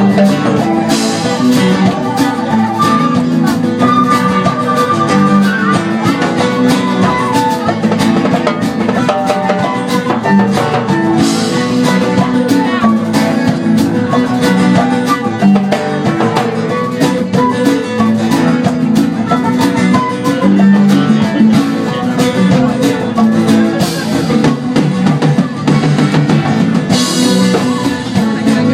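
Live band music with strummed acoustic guitar, drums and flute.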